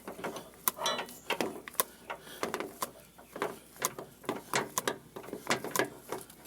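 Irregular light clicks and knocks of hand tools and metal parts being handled during work on a rear sway bar link.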